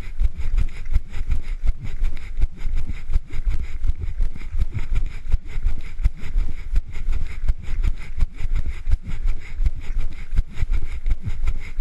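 Wind buffeting the microphone of a camera carried by a runner, a heavy rumble that swells and dips rapidly, with the runner's footfalls and handling knocks giving a quick, uneven pulse.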